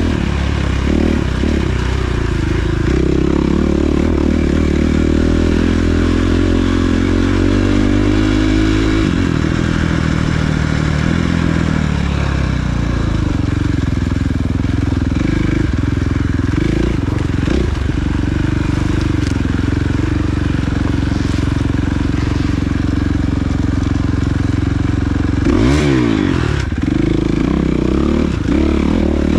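Off-road dirt bike engine ridden hard, its pitch climbing and dropping over and over as the throttle opens and closes. There is a quick blip of revs about three quarters of the way through, with clatter from the bike over rough ground.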